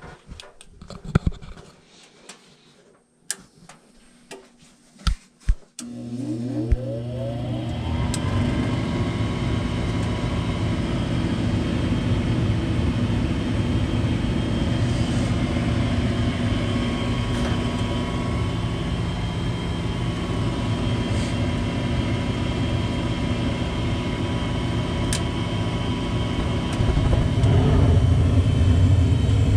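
A few clicks and knocks, then a furnace motor starts, rising in pitch as it spins up over a couple of seconds and then running steadily with a hum; it gets louder near the end.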